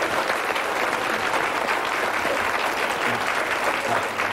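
Audience applauding steadily, a dense sound of many hands clapping.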